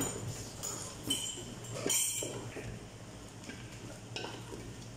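Wooden spatula stirring bitter melon shoots in an aluminium cooking pot, scraping and knocking against the pot, with the loudest knocks about one and two seconds in.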